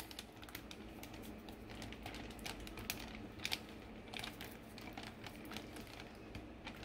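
Silicone spatula scraping marinade out of a glass bowl into a plastic zip-top bag: a run of faint, irregular clicks and scrapes.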